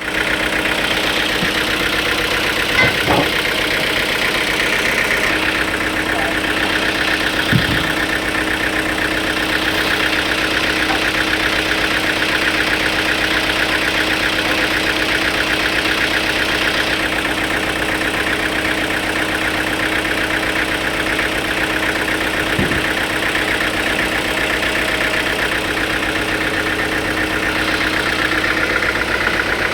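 An engine running steadily at a constant speed, with an even pulse throughout. A few short knocks sound over it, three times.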